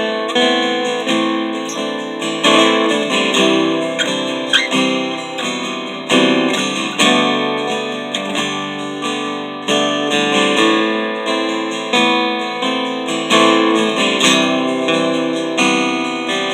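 Seagull steel-string acoustic guitar, strung with coated Cleartone 12–53 strings and set up with very low action, being strummed and picked in a steady rhythm of chords.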